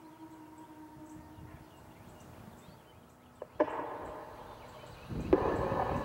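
Whelen WPS-2750 electronic siren's steady alert tone dying away over the first couple of seconds. About three and a half seconds in comes a sharp click, then a rushing noise that grows louder about five seconds in.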